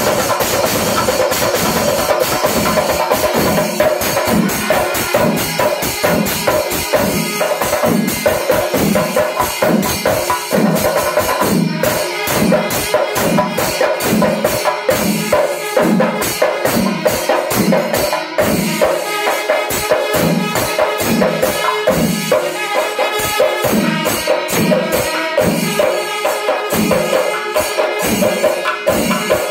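Panchari melam, a Kerala temple ensemble: chenda drums and ilathalam cymbals play a steady, dense rhythm, with kuzhal pipes holding a sustained reedy tone above.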